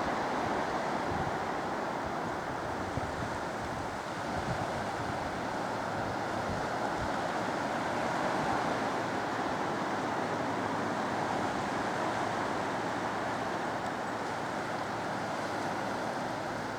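Steady wash of surf breaking on a beach, mixed with wind, with a few brief low gusts buffeting the microphone in the first few seconds and again about seven seconds in.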